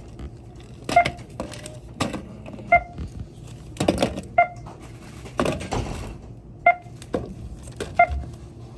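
Checkout barcode scanner beeping five times at uneven intervals as items are scanned. Between the beeps, items clatter and plastic bags rustle as they are bagged.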